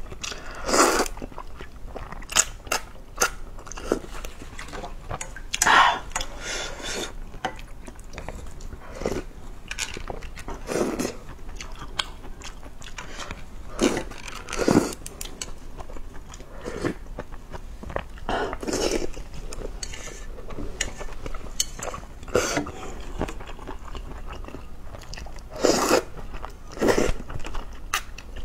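Close-up mouth sounds of a person eating luosifen rice noodles in spicy broth: several long slurps of noodles and broth between short wet chewing clicks.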